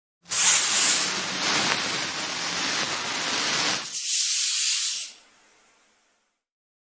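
Intro sound effect: a rushing hiss that starts about a quarter second in, thins to a higher hiss about four seconds in, and fades out about a second later.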